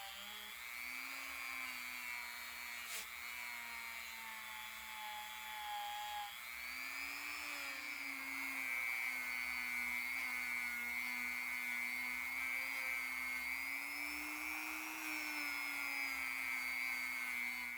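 Small electric power-tool motor running with a steady whine, likely used for polishing steel and brass. The pitch wavers slightly, and about six seconds in the sound shifts and grows louder. There is a single click about three seconds in.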